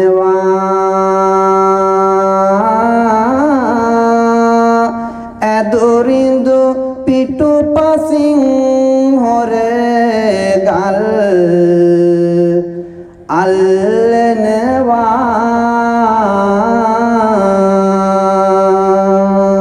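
A Buddhist monk's male voice chanting a Sinhala verse in kavi bana style: long, drawn-out notes with wavering, gliding ornaments and short breaks for breath, about five seconds in and again near thirteen seconds.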